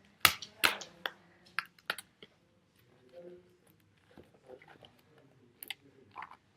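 Handling of a toy craft kit's paper and plastic pieces: a quick run of sharp clicks and crinkles in the first two seconds, then quieter fiddling, and two more clicks near the end.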